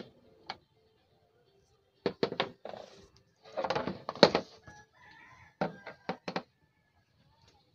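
Sharp clicks and knocks of a screwdriver and the plastic back cover of an LED TV being handled while the cover is unscrewed, with a denser burst of clatter about halfway through and three more clicks a couple of seconds later.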